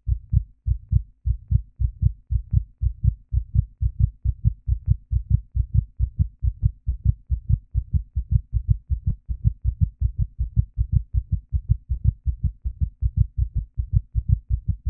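Heartbeat: a steady run of low, paired lub-dub thumps, a little faster than one beat a second.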